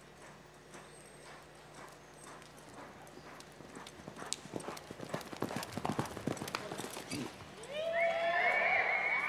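Hoofbeats of a reining Quarter Horse loping and then running on soft arena dirt, the strikes growing louder and quicker as it drives toward a sliding stop. About eight seconds in, as the horse slides, the crowd breaks into loud whooping and whistling.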